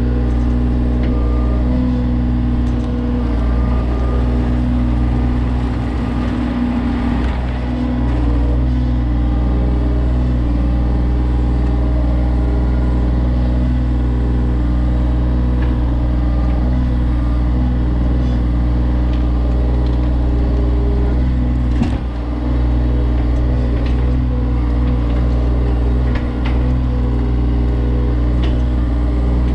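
John Deere 35G mini excavator's diesel engine running steadily under work, with two brief dips in level about three-quarters of the way through.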